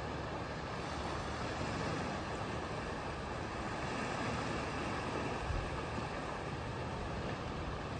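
Steady shore ambience: small waves lapping on a sand-and-rock beach, with wind rumbling on the microphone.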